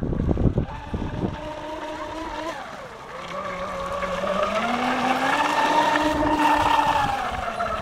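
RC offshore speedboat's brushed electric motor whining at speed. The pitch drops about three seconds in, then climbs and grows louder as the boat passes close about six seconds in, and falls away again near the end.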